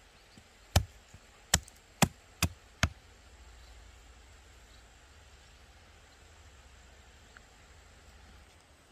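Machete chopping a wooden stake to a point: five sharp strikes about half a second apart, then the chopping stops.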